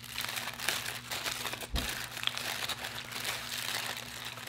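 Aluminium foil wrapper crinkling and crackling as it is peeled open from around a taco.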